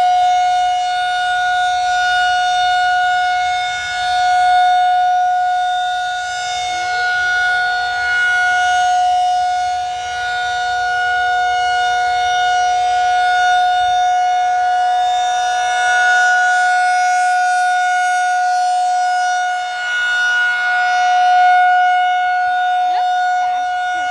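Outdoor tornado warning siren sounding a steady, unwavering tone during a scheduled test. It is very loud, and its level swells and fades every several seconds as the rotating horn sweeps around.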